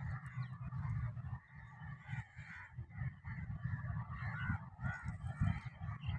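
Many birds calling at once, a dense overlapping chatter with a steady low pulsing underneath.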